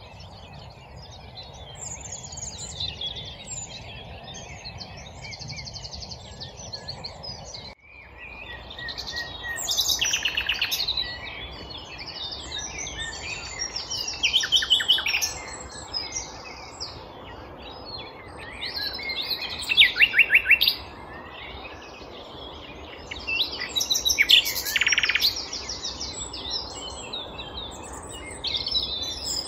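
Common nightingale singing: loud phrases of fast repeated notes every five seconds or so, among softer varied song, over a steady low background rush.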